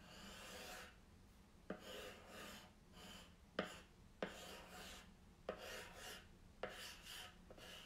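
White pencil sketching lines on a laminate drawer front: a faint series of short scratchy strokes, about a dozen, each starting with a light tap as the tip meets the surface.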